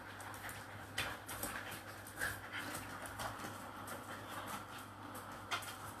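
Two dogs wrestling in play: faint scuffling and panting, with a couple of light knocks, one about a second in and one near the end.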